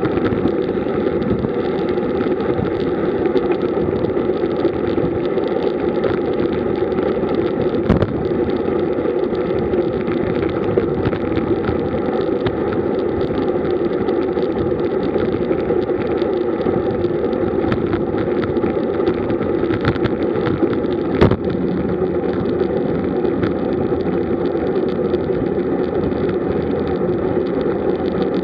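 Steady rush of wind and tyre roar picked up by a camera mounted on a road bike riding in a group at about 40 km/h. Sharp knocks at about eight seconds and again past twenty seconds.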